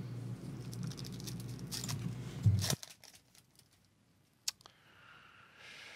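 Baseball cards and their pack being handled: faint scratchy rustles and a few sharp clicks. These play over a low electrical hum that cuts off suddenly a little before three seconds in.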